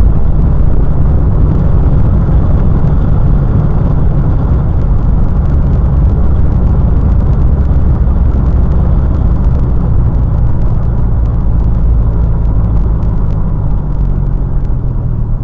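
Steady engine and road noise inside the cabin of a moving 2003 Honda Element with its 2.4-litre four-cylinder, easing slightly near the end. The engine is running with the P2646 rocker-arm oil pressure switch fault set.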